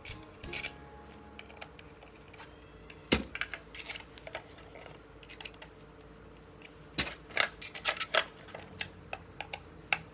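Irregular clicks and taps of a small circuit board and its box being handled and fitted together by hand, one sharp knock about three seconds in and a quick run of clicks near the end.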